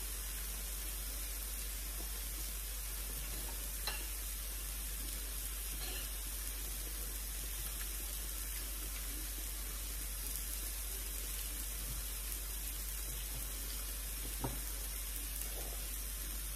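Chicken and beef sizzling on the hot plate of an electric tabletop grill-and-hotpot, a steady hiss. Two light utensil clicks, about four seconds in and again near the end.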